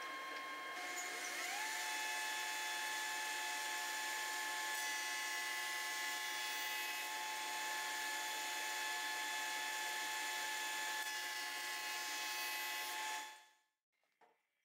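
A 40-year-old Shopsmith jointer, driven by the Shopsmith headstock motor, running through a pass on a 2x4 edge, sped up threefold into a high, steady whine. The pitch rises a little about a second and a half in, and the sound fades out near the end.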